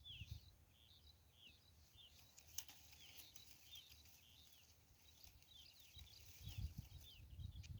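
Faint, repeated short chirps of a small bird, each a quick high falling note, about two a second. A low rumble builds near the end.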